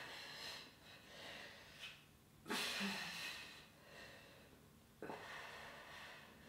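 A woman breathing hard with effort through an ab exercise: about four long, airy breaths, the loudest about two and a half seconds in.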